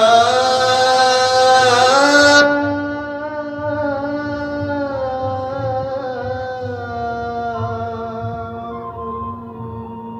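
Borgeet singing with harmonium accompaniment: the sung line ends about two and a half seconds in, leaving a steady harmonium drone that slowly fades away.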